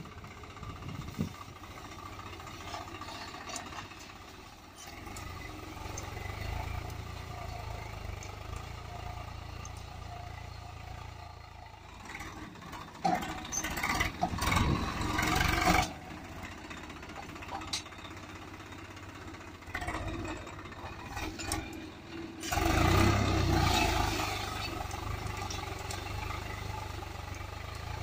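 Swaraj 744 FE tractor's three-cylinder diesel engine running under load as it pulls a tine cultivator through dry soil. It is steady and low, and grows much louder for a few seconds about halfway through and again near the end.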